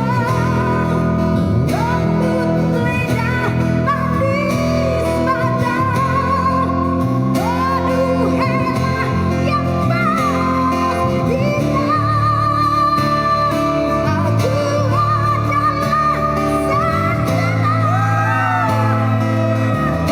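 Live sung vocal, held notes with vibrato, over amplified guitar accompaniment.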